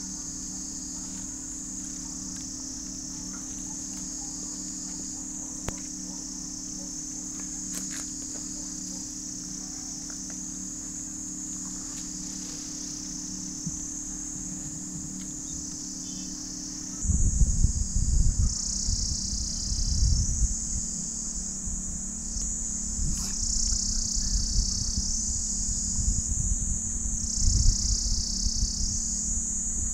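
Insect chorus: a steady high-pitched buzzing. A little over halfway through it starts to swell and fade in waves every couple of seconds, over a louder low rumble.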